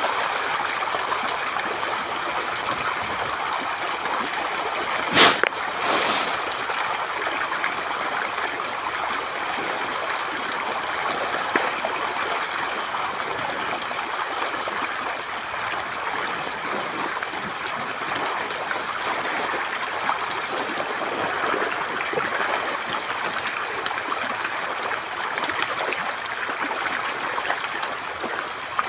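Steady splashing and churning of water from a dense shoal of small fish thrashing at the surface of shallow muddy water. One sharp knock about five seconds in.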